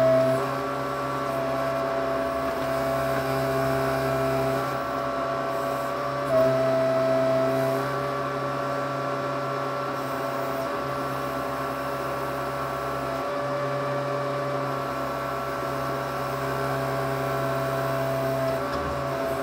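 Case 580C backhoe engine running steadily, heard from the operator's seat, with the hydraulics under load as the boom is worked: a whine swells at the start and again about six seconds in.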